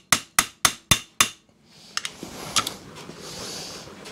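Hammer tapping a 4 mm hex key into a rounded-out socket-head bolt: five sharp metal strikes, about four a second, then quieter scraping and a couple of clicks as the key is worked.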